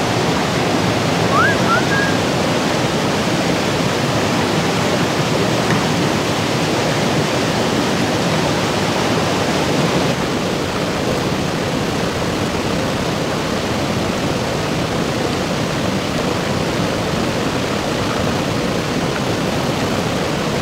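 Stream water rushing over rocks, a steady, even noise. A short rising whistle sounds about a second and a half in, and the water is a little quieter after about ten seconds.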